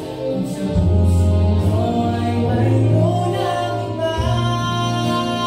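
Male vocal group singing a ballad in harmony, several voices together with long held notes over low sustained bass notes.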